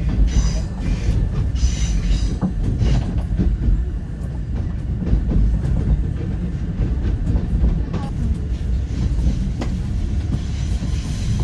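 Fuxing CR200J train running on the line: a steady low rumble of wheels on rails, with scattered sharp clicks from the track.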